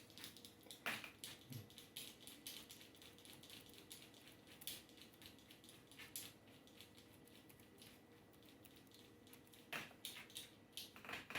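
Faint, irregular key clicks of a Toshiba Satellite C55 laptop keyboard as a Wi-Fi password is typed in, with a quieter stretch a little past the middle.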